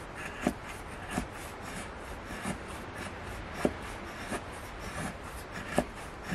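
Cudeman Sanabria bushcraft knife shaving thin curls down a wooden stick to make a feather stick: a steady run of short scraping strokes, a few of them ending in a sharp click.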